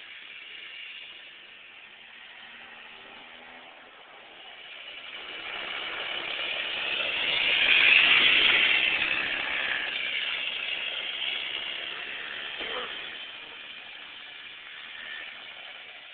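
Kid kart's small engine passing by: it grows louder as it approaches, is loudest about halfway through, then fades as it drives away.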